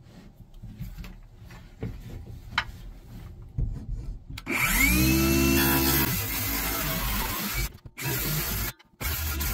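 Quiet rustling and small knocks as a circular saw is set against an OSB wall, then about four and a half seconds in the saw spins up with a rising whine and cuts into the OSB. Near the end the saw cuts out briefly twice and runs again.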